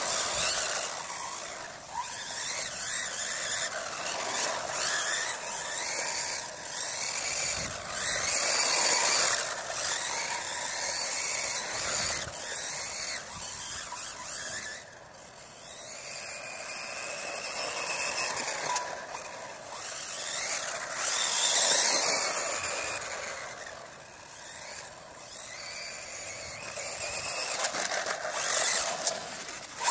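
Electric motor and drivetrain of a four-wheel-drive RC stadium truck running on a 2S battery, whining as it is driven at speed. The pitch rises and falls with the throttle, and the sound swells louder twice.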